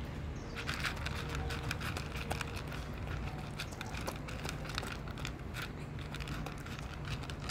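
A pet eating dry kibble fast: a rapid, irregular run of crisp crunches from the food being chewed and the tray being nosed, over a steady low hum.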